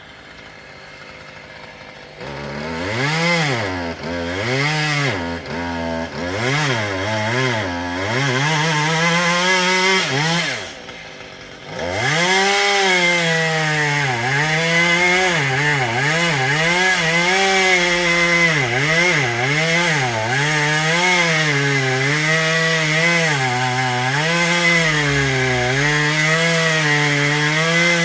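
Two-stroke chainsaw revved in short bursts from about two seconds in, easing off briefly around the ten-second mark. It then runs at high revs cutting willow, its pitch repeatedly dipping and recovering as the chain bites into the wood.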